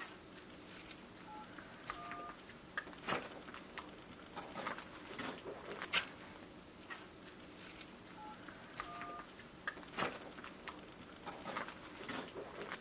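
Faint scattered clicks and taps, with two short electronic beeps, each a pair of tones sounding together; the same two beeps come again about seven seconds later.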